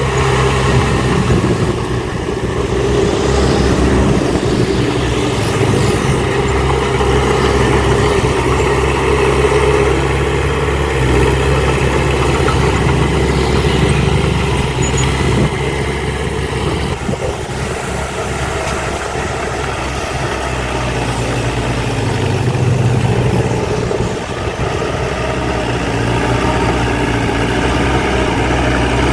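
Diesel engines of heavy earthmoving machines, dump trucks and a bulldozer, running steadily, with the engine note shifting a few times.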